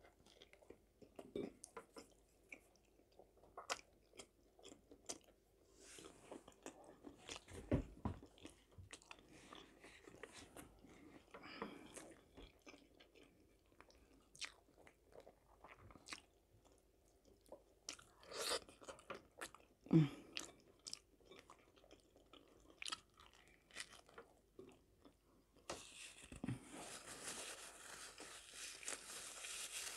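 Close-miked eating: a person biting and chewing bread and roast chicken leg, with irregular wet smacks and small crunches. Near the end a steady rustling hiss joins in.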